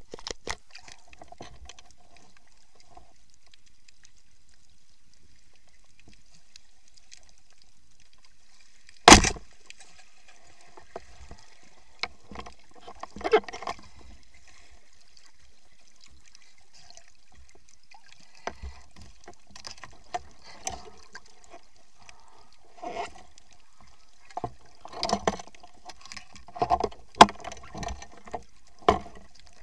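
Underwater sound through a camera housing while a diver swims with a speargun: a steady faint hiss with scattered clicks and knocks, one loud sharp knock about nine seconds in, and a busier run of knocks and thuds in the last third.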